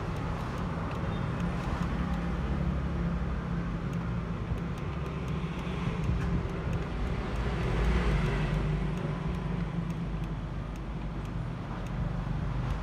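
Steady background road traffic, a continuous rumble with a low hum, swelling a little partway through.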